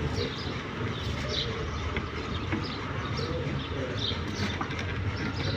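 Birds chirping in short scattered calls over a steady low hum, with a few faint clicks.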